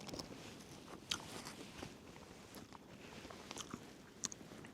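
A person quietly chewing a mouthful of food, with scattered small clicks and crunches.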